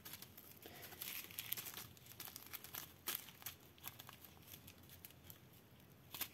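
Small plastic zip-lock bags of square diamond-painting drills crinkling and crackling faintly as they are handled and shuffled in the hand, with a couple of sharper crackles about three seconds in and just before the end.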